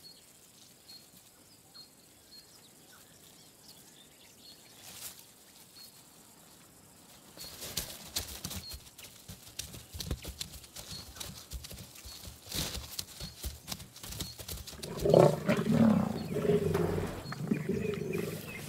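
Lions growling over a giraffe kill, with scuffling and thuds as they grapple with the carcass. It opens quiet apart from faint regular high chirps; the struggle sounds start about seven seconds in, and the loudest growling comes in the last few seconds.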